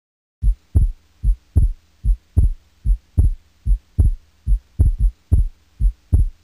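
Heartbeat sound effect: steady lub-dub double thumps at about 75 beats a minute, starting about half a second in.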